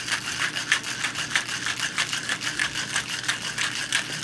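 Cocktail shaker being shaken hard, its contents rattling against the tin and glass in a fast, even rhythm of about six strokes a second.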